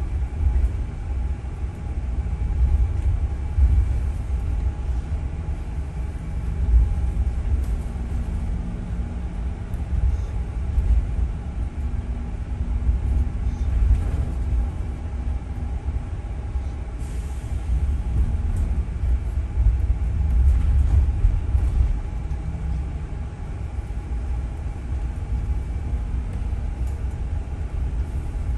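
Inside a London double-decker bus on the upper deck: a low, steady rumble of the bus driving, with a faint steady hum over it.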